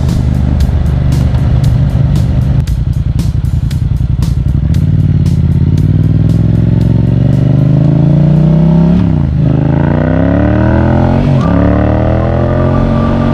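Yamaha MT-07's parallel-twin engine through a Yoshimura exhaust. It runs at low revs with a fast run of regular clicks for the first few seconds, then accelerates hard, the pitch climbing through the revs. It drops sharply with upshifts about nine seconds in and again about two seconds later.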